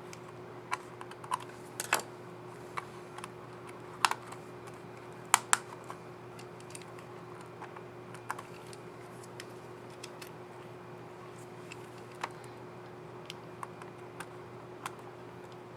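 Scattered sharp plastic clicks from a Dell Precision 3561 laptop's keycap and scissor mechanism being handled, snapped into place and pressed on the keyboard. The clicks come thickly at first, with the loudest a little past five seconds in, then grow sparse.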